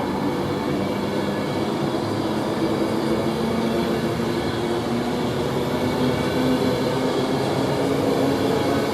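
Class 390 Pendolino electric train pulling out and running past at close range: a continuous rumble of wheels on rail with a faint hum of traction motors that rises slowly in pitch as it gathers speed.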